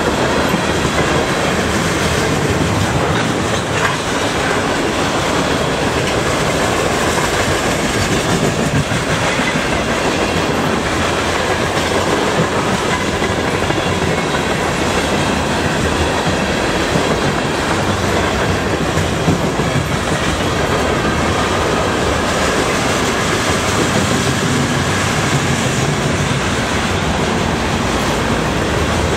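CN freight train's tank cars rolling past at speed: a steady, loud noise of steel wheels running on the rails.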